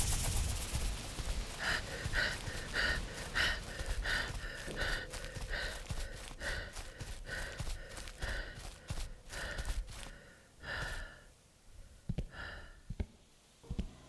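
An animal call, a short pitched note, repeated about twice a second for some ten seconds and slowing a little, then once more after a pause, over a low rumble.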